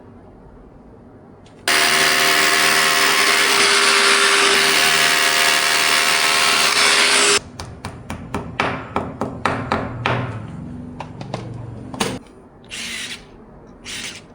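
Power tool, most likely a drill, run at steady speed for about six seconds with a high whine, starting and stopping abruptly. It is followed by a string of sharp clicks and knocks from parts being handled, and two short hisses near the end.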